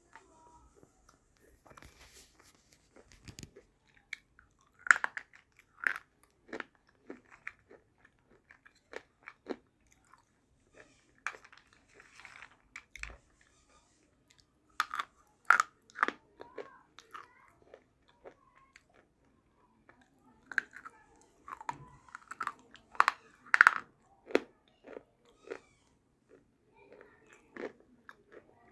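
Red slate pencils being bitten and chewed close to the microphone: sharp crunches that come in clusters, loudest about five seconds in, around the middle and again a few seconds before the end, with quieter grinding chews in between.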